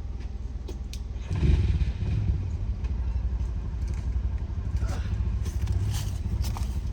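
2007 Jeep Wrangler JK's 3.8-litre V6 running with a steady low rumble that gets louder about a second in, as under more throttle, with light rattles and clicks throughout.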